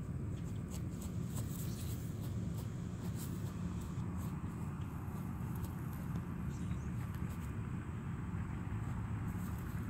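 Nine-banded armadillo rooting with its snout in dry grass and leaf litter, making scattered small crackles and rustles, thickest in the first few seconds, over a steady low rumble.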